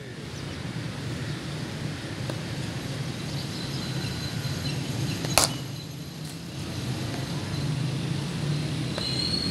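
A single sharp crack of a cricket bat striking the ball, about five seconds in, over a steady low background hum.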